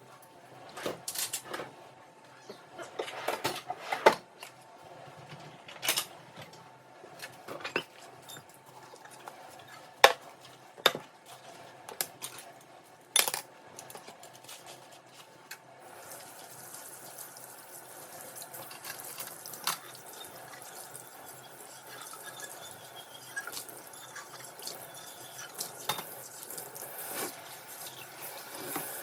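Dishes and cutlery clinking and knocking in a kitchen sink, then a tap running steadily from about halfway through, with a few more clinks over the water.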